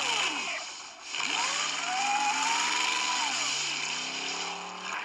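Ford Bronco 4x4 engine revving as the truck powers through deep mud, wheels spinning and spraying mud. There is a short break about a second in, then the engine note climbs steadily.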